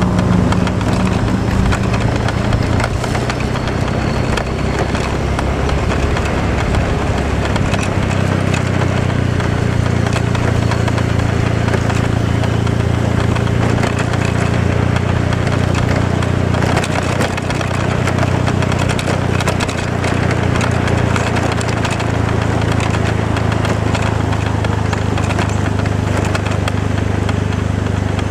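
A vehicle's engine drones steadily with road noise, heard from inside the moving vehicle. Its low pitch shifts about eight seconds in.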